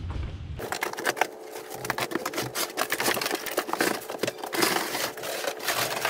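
Crunching and crackling of snow as a two-stage snowblower is moved about on a snowy wooden deck: a dense, irregular run of clicks starting about half a second in.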